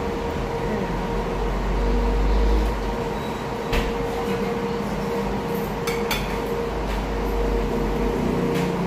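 Steady restaurant room hum with a constant tone over a low rumble, broken by a few sharp clicks, one about four seconds in and two close together around six seconds.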